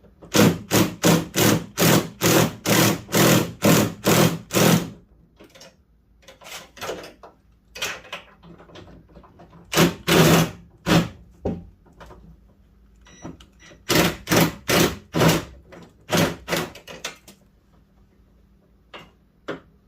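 Runs of sharp, rhythmic metal clacks, about two to three a second, from work on a Fox-body Mustang's door handle hardware: a long run of a dozen or so, then shorter bursts with pauses between.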